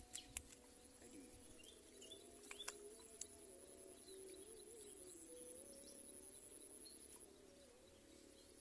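Faint outdoor ambience: a steady high whine that stops near the end, a low drone wavering slowly in pitch, and a few sharp clicks in the first three seconds.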